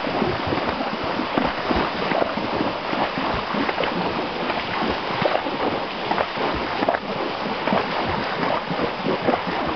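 Horses wading through a shallow river, their hooves splashing water continuously in an irregular patter.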